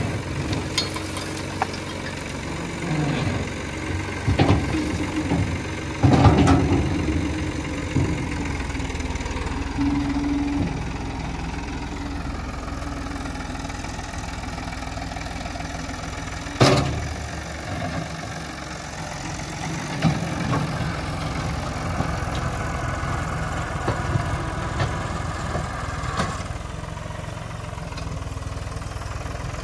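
Tractor's diesel engine running steadily while the front loader works, with a few knocks and clanks, the sharpest about 17 seconds in.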